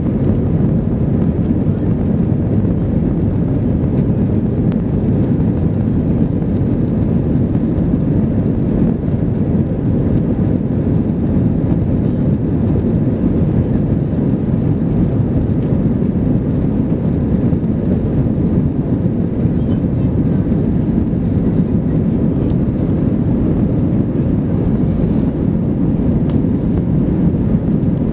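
Cabin noise of an Airbus A320 on its take-off roll, heard from a seat over the wing: the engines at take-off power and the wheels rumbling on the runway make one steady, deep noise.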